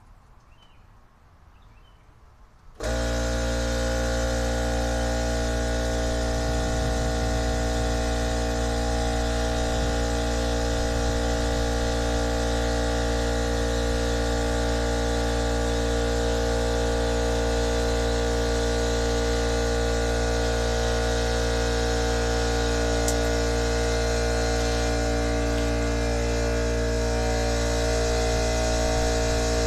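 McGraw 8-gallon 1.5 HP oil-free air compressor switching on about three seconds in and then running steadily, its motor and pump building pressure in the tank.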